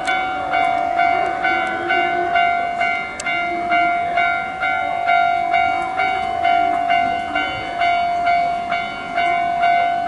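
Japanese railway level-crossing alarm ringing about twice a second, each strike fading, over a steady ringing tone, while the crossing barriers come down: the signal that a train is approaching.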